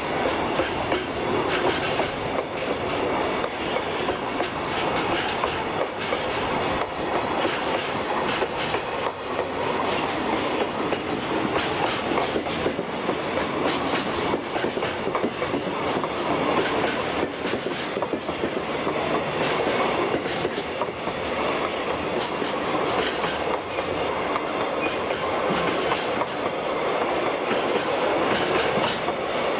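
Freight train container flatcars rolling past close by: a steady rumble of steel wheels on rail with a continual clickety-clack over the rail joints.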